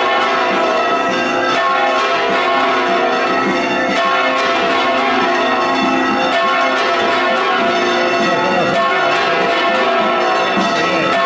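Church bells pealing continuously, several bells ringing over one another without a break.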